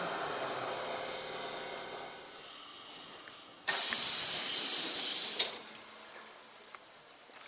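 Metro train running and slowing as it pulls into a station, its rumble fading over the first few seconds. About halfway through comes a sudden loud hiss of air lasting nearly two seconds, cut off by a sharp clack, typical of the train's pneumatics venting as it stops.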